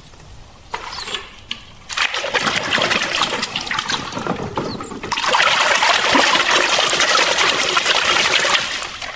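Water running and splashing, starting about two seconds in and getting louder about five seconds in.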